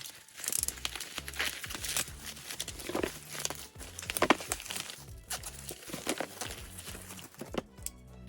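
Packaging crinkling and rustling in the hands, with scattered sharp taps and clicks, over background music with a steady bass line.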